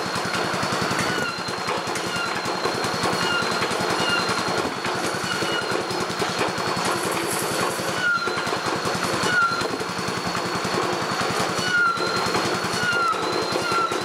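Fisher & Paykel Smart Drive generator rig running with a fast, steady rattling buzz while a high-voltage arc is drawn from its output onto a steel tin can, flaring about eight seconds in. A faint steady high whine and short falling chirps sit over it.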